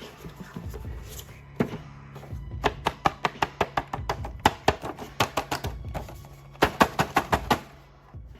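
A rapid series of sharp clicks and taps, in quick runs through the middle and near the end, over a low steady hum.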